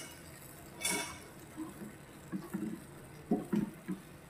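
A spatula stirring thick curry sauce with vegetable chunks in a small pan: wet sloshing and squelching with a few soft knocks, and a brief louder swish about a second in.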